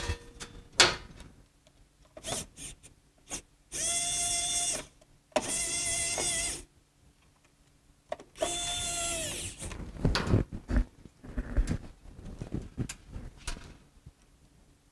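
Small electric screwdriver motor whirring in three short runs of about a second each while driving wire-terminal screws, with light clicks of handling between the runs.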